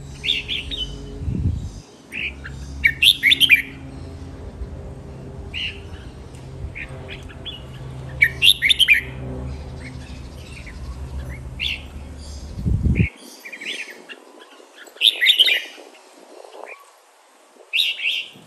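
Caged red-whiskered bulbul singing, a string of short, sharp song phrases repeated every second or few, in the bird's full chattering song.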